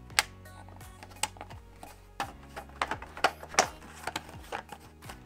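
Irregular clicks and snaps of a plastic feed trough and its green strip being handled and pressed together, over quiet background music; a sharp snap near the end is the loudest.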